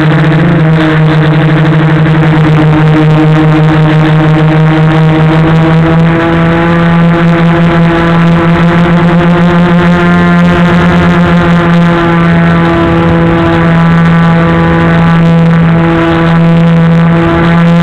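Multirotor drone's motors and propellers humming steadily, heard close up from the aircraft's own camera, with a pulsing beat in places as the rotors drift in and out of step.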